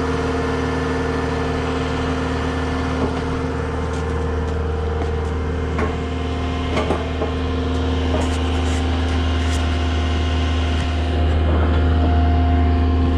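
Cat 259D compact track loader's diesel engine running at a steady idle, a low, even hum with a few light knocks over it, growing a little louder near the end.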